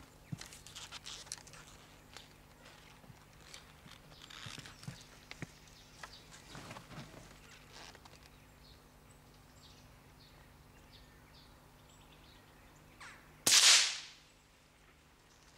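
A single shot from an Anschutz 1517 .17 HMR rimfire rifle: one sharp, loud report near the end, after several seconds of faint rustles and small clicks.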